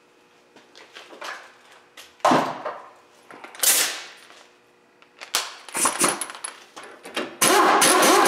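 Pneumatic impact wrench hammering on a stabilizer link nut for about two seconds near the end, after scattered knocks and clicks and a short burst about three and a half seconds in. The nut is being driven without the link's stud held, and the attempt fails to tighten it.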